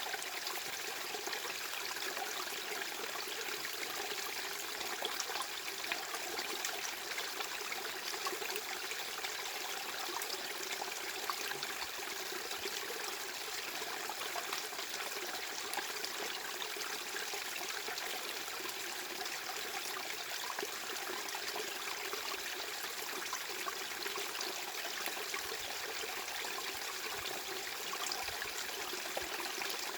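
Steady, even rushing noise, filling the middle and high range with very little low end: a white-noise masking track of the kind used against tinnitus.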